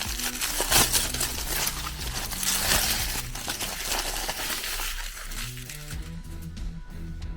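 Meat grinder crushing food with a harsh crunching noise, loudest about a second in and again near three seconds, fading out after about five seconds, with guitar background music underneath.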